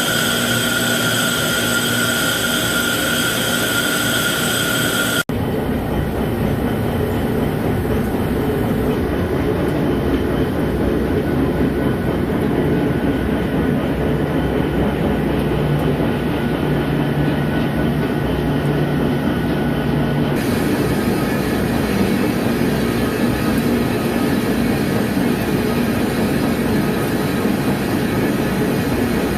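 Lathe turning a cast iron tire mold segment: continuous machine and cutting noise. A steady high whine runs for the first five seconds, and the sound changes abruptly twice, about five seconds in and about twenty seconds in.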